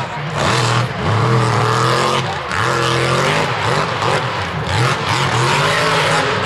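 Mud bog truck's engine running hard, its revs rising and falling repeatedly through a run, over a steady wash of spinning tyres and mud.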